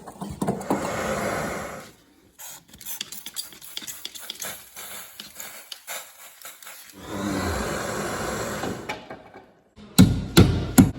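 Wood being worked by hand: stretches of scraping and rubbing with irregular clicks, then several sharp knocks about ten seconds in.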